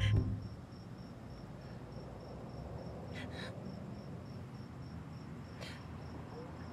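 Crickets chirping in a steady, evenly repeating high-pitched pulse. Music cuts off right at the start, and a few brief faint sounds come through the crickets.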